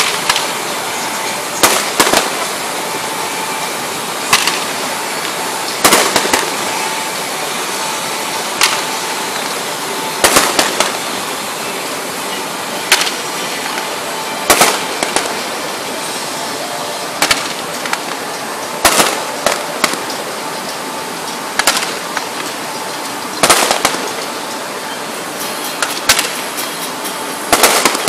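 Fireworks display: aerial shells bursting with repeated sharp bangs, irregularly about one every second or two and sometimes in quick pairs, over a steady rushing noise.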